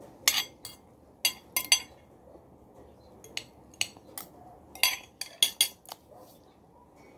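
Metal spoon and fork clinking and scraping against a plate while eating: about a dozen sharp clinks at uneven intervals, some in quick pairs.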